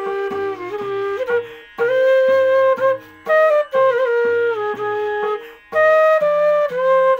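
Bansuri, a bamboo transverse flute, playing a Raag Yaman melody pitched in G#. It moves in phrases of held and sliding notes, with a short breath pause between phrases about every two seconds.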